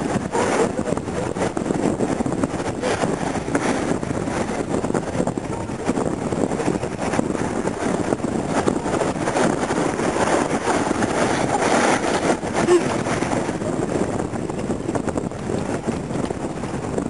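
Ocean surf washing up the shore, with wind buffeting the microphone.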